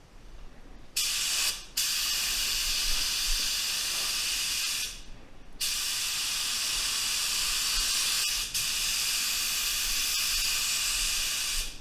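Tuba TR300 HVLP spray gun hissing steadily as it sprays a pearl coat at 28 psi. The hiss starts about a second in and runs in long passes, with short breaks as the trigger is released, the longest about five seconds in.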